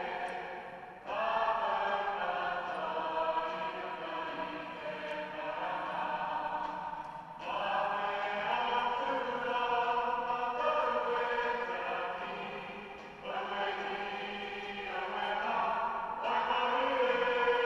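A group of voices singing a hymn or waiata in long sustained phrases, each new phrase starting abruptly, in a reverberant cathedral.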